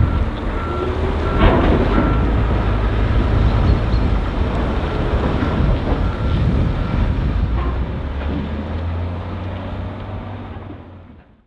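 Volvo L180F wheel loader's diesel engine running steadily, with a row of short high beeps and some clattering early on, fading out near the end.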